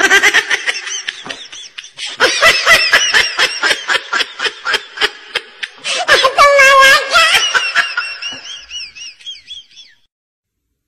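High-pitched laughter in rapid repeated bursts, with a longer drawn-out note about six seconds in. It stops shortly before the end.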